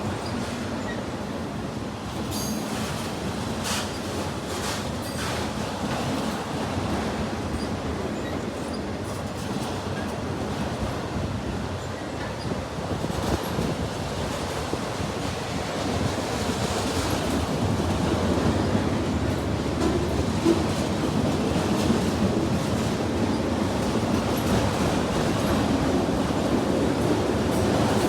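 Mixed freight train rolling past: a steady rumble of railcar wheels on the rails with some clicks and clatter. It grows louder about halfway through.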